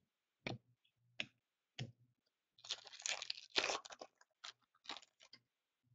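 Trading cards being handled: three short card snaps, then about a second and a half of dense rustling and crinkling, then a few more snaps.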